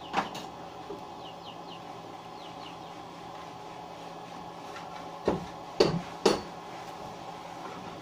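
Three sharp knocks about half a second apart, a little past five seconds in, as a hand tool strikes the roof framing overhead; a single click comes near the start.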